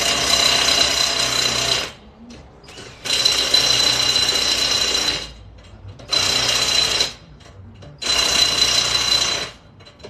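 Impact wrench hammering in four bursts of one to two seconds each, with pauses between them, as lug nuts are run onto a car wheel during a tire change.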